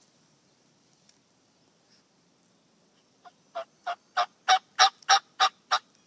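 Wild turkey yelping close by: a run of about eight evenly spaced yelps, roughly three a second, starting a little past halfway, growing louder and then easing off slightly.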